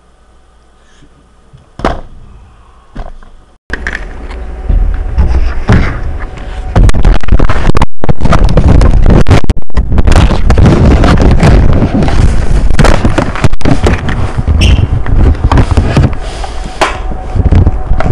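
Handling noise close to the microphone, with two sharp knocks in the first few seconds. About four seconds in it turns into loud, near-clipping rumbling, rubbing and frequent knocks, like the document camera being picked up and moved about.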